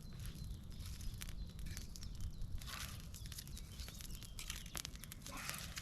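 Campfire of dry spruce twigs crackling, with many sharp pops and snaps, plus a couple of brief rustles.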